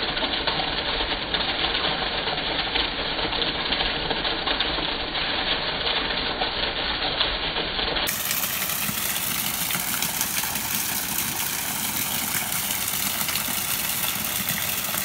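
Rainwater pouring in a thick stream off a roof edge in heavy rain: a steady rushing splash. For the first half the sound is slowed down and deep and dull; about halfway through it switches to normal speed and turns bright and hissy.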